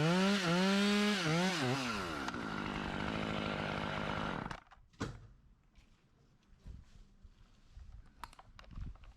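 Two-stroke chainsaw cutting wood, its revs dipping under load and recovering a few times before the throttle is let off about two seconds in. The saw's sound stops suddenly about halfway through, leaving only faint knocks and clicks.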